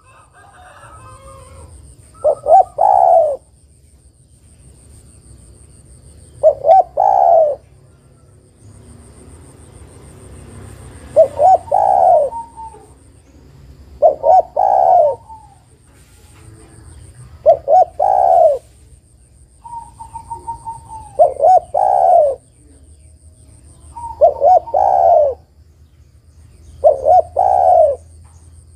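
Spotted dove cooing: a short phrase of a few coos repeated eight times, about every three to four seconds, given as a female's call to a male.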